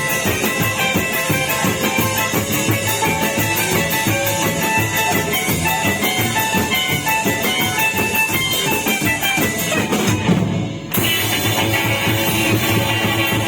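Rock band playing an instrumental passage with electric guitar and drum kit, with a short break about ten and a half seconds in before the band comes back in.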